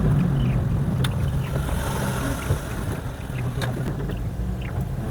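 Steady low rumble of a car's engine and road noise heard from inside the moving car, with a few faint clicks.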